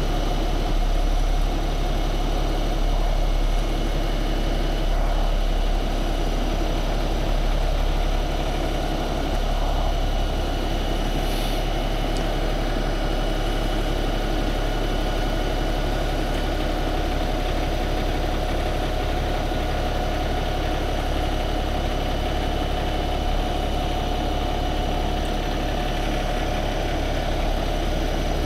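Heavy diesel truck engine idling steadily, a low rumble with a steady whine above it, as a recovery winch slowly pulls a stuck dump truck out of deep mud.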